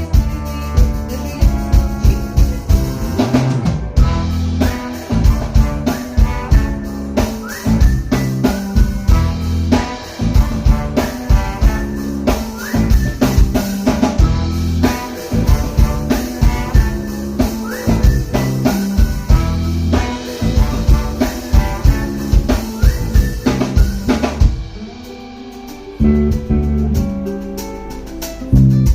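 Band music: a drum kit with snare and bass drum beats over guitar and bass. About 24 seconds in the drums drop out and the music goes quieter, then the full band comes back in near the end.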